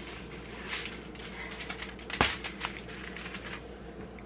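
Foil-covered disposable aluminium baking pan set down on a glass-top stove: light clicks and rustling, with one sharp tap about two seconds in.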